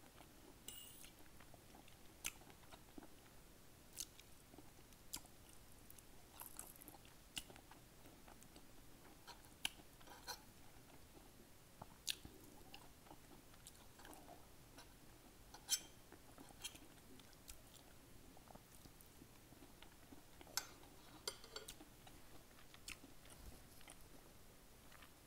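Quiet, close-miked chewing of sautéed collard greens, with small sharp wet mouth clicks coming irregularly every second or so.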